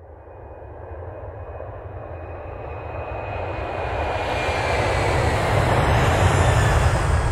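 Jet airliner passing close, its engine noise growing steadily louder over several seconds, with a high engine whine that glides slowly down in pitch as it goes by.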